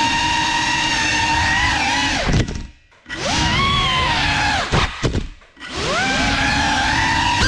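GEPRC CineLog35 cinewhoop's brushless motors whining in flight, the pitch rising and falling with throttle. Twice the throttle is chopped: the whine falls away to near silence for about half a second, then the motors spool back up with a rising pitch.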